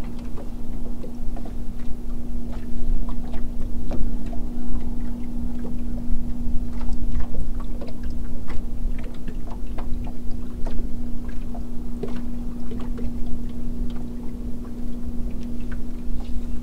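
Fishing boat sitting on the lake: small, irregular slaps and knocks of water against the hull over a low rumble, with a steady low hum throughout.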